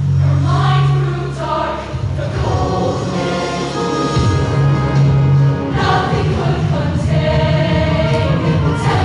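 Women's show choir singing in full voice, with a band accompanying under a steady bass line.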